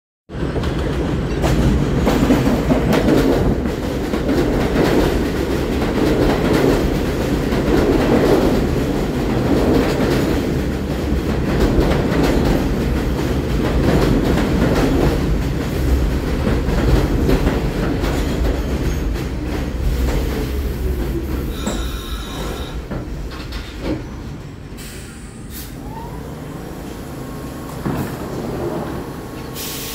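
R46 subway train rolling into the station: steady wheel rumble and clatter over the rails for about the first 20 seconds, growing quieter as the train slows to a stop, with a short squeal of wheels or brakes about 22 seconds in.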